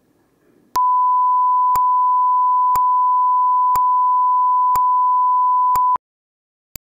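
Line-up test tone: one steady, pure, mid-pitched beep with a short click once a second. It starts about a second in and cuts off abruptly after about five seconds.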